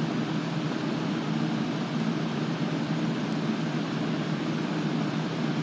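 A steady low hum under an even rush of noise, running unchanged throughout.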